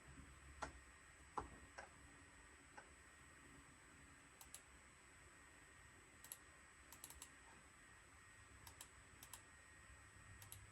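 Near silence with faint, irregular clicks of controls being pressed, a dozen or so scattered across the stretch.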